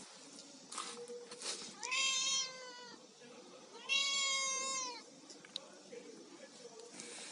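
Domestic cat meowing twice: two long, drawn-out meows about two seconds apart. A few soft knocks come before them.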